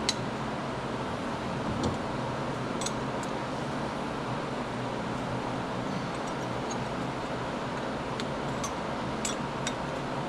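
Steady mechanical hum and hiss, like a shop fan running, with a few light clicks and taps near the start and a cluster of them near the end.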